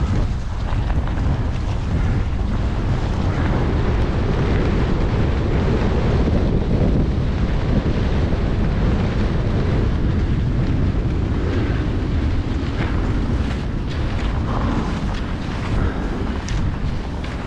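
Heavy, steady wind noise buffeting the microphone of a camera carried by a cross-country skier moving along a groomed track.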